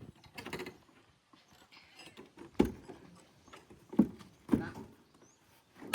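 Three sharp knocks, the first a little before halfway and two more close together later on, each with a short ring.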